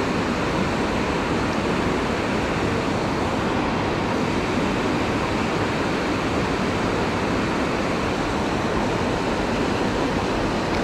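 Water spilling over a low-head dam and churning below it: a steady, even rush with no change in level.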